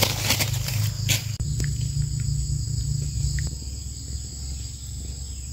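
Steady high-pitched chorus of insects, with rustling and a few clicks in the first second and a low rumble underneath.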